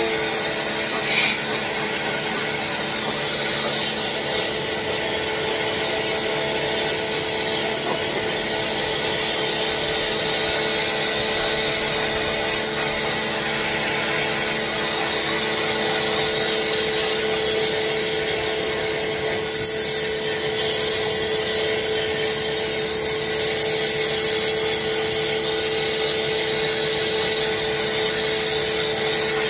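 Ozito 1800W electric pressure washer running steadily, its motor and pump humming under the hiss of the water jet blasting a concrete slab; the hiss gets suddenly louder about two-thirds of the way through. The owner puts the pump's noises down to air in the water hose making the pump skip on its first use.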